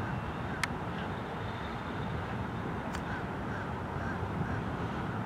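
Double-stack container train cars rolling past, a steady rumble of steel wheels on the rails, with two sharp clicks about two-thirds of a second and three seconds in.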